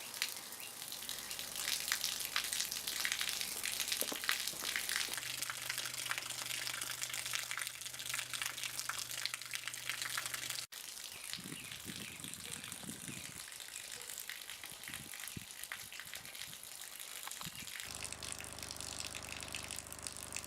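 Water gushing and splashing from a hose in a steady stream. A steady low hum comes in about five seconds in and again near the end, and there is a brief break in the sound about halfway through.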